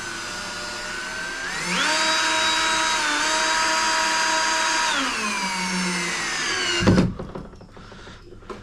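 Power drill driving a door-handle mounting screw: the motor whine rises in pitch about two seconds in, holds, then winds down and stops with a sharp knock near the end, followed by a few light clicks.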